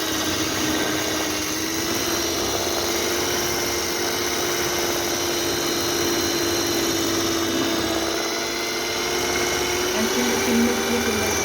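Electric kitchen mixer beating eggs and sugar, its motor running with a steady whine whose pitch creeps slightly higher as the batter thickens and pales. It slows and stops near the end.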